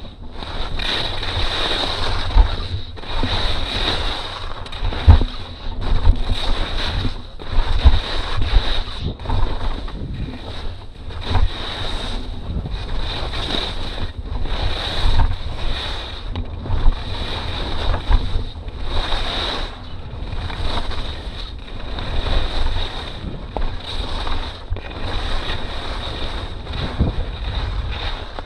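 Skis scraping over hard-packed snow in steady turns, a swell of scraping about once a second, with wind buffeting the microphone as a low rumble.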